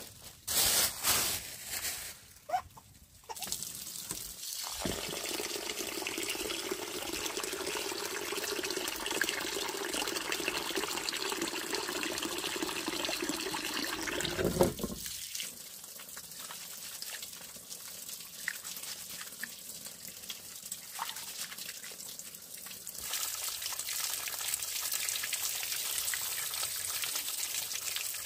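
Water running steadily, after a few clatters in the first couple of seconds. The flow eases off about halfway through and runs harder again near the end.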